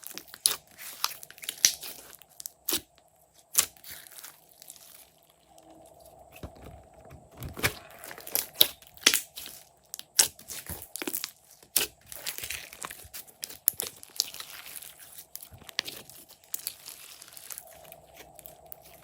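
Glossy slime being squished and worked by hand, with irregular sharp pops and clicks and stretches of wet crackling, over a faint steady hum.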